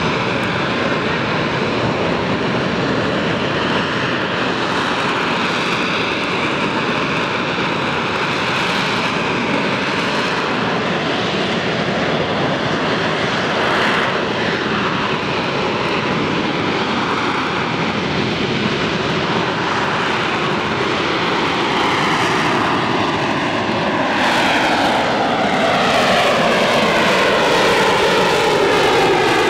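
AV-8B Harrier II's Rolls-Royce Pegasus turbofan running loud and steady during its flying display. In the last few seconds the roar takes on a sweeping, phasing whoosh as the jet moves.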